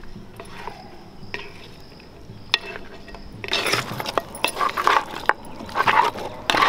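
Mutton bone pieces knocking and clinking against a metal vessel as they are mixed with turmeric and salt. A few scattered knocks at first, then a dense, continuous clatter from about halfway through.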